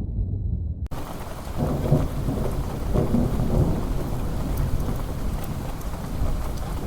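Thunderstorm: a low rumble of thunder, then about a second in steady rain cuts in abruptly, with rolling thunder rumbling under it.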